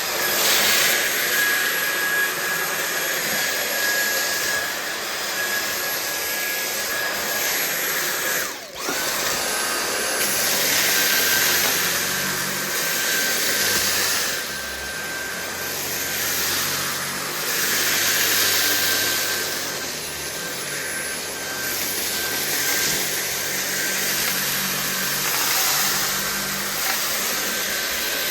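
Dyson V8 cordless stick vacuum running on a thick fluffy rug: a steady high motor whine over a rushing sound that swells and fades every few seconds as the head moves. About a third of the way in the motor cuts out for a moment and whines back up to speed, as when the hold-down trigger is let go and squeezed again.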